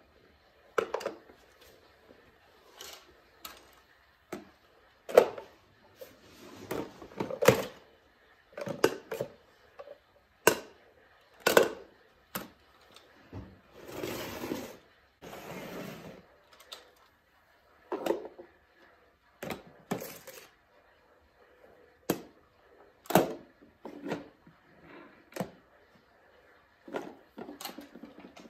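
Small plastic toy wheelie bins and a plastic wastebasket of wooden blocks and plastic scraps handled on a tile floor: an irregular string of sharp clacks, knocks and rattles, with a longer rustling shuffle of the basket's contents about halfway through.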